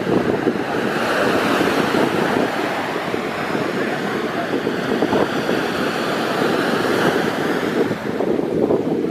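Ocean surf breaking and washing through the shorebreak, a steady rush, with wind buffeting the microphone.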